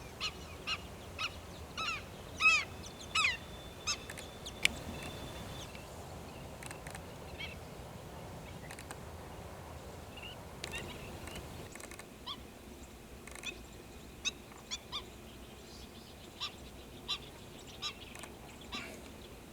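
Oriental pratincoles calling: short, sharp, ringing calls, a quick series in the first few seconds, then single calls scattered through. Light wind rumble runs underneath and drops away about twelve seconds in.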